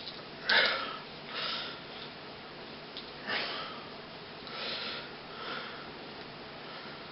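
A person sniffing five times in short breathy sniffs, spread unevenly; the first sniff is the loudest.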